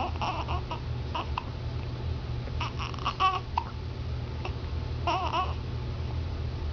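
Baby babbling in short, high-pitched coos and squeals, one with a wavering pitch, broken by a few brief sharp catches typical of infant hiccups.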